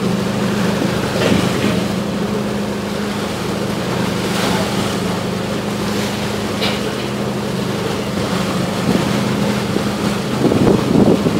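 Steady drone of the river ferry's diesel engine from on deck, mixed with water rushing past the hull and wind on the microphone, with a brief louder rush near the end.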